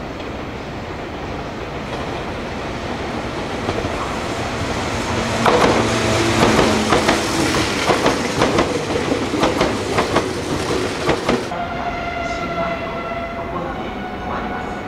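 Meitetsu electric train moving past on the station tracks, its wheels clattering over rail joints for several seconds in the middle over a steady rumble, then leaving a steady electric whine near the end.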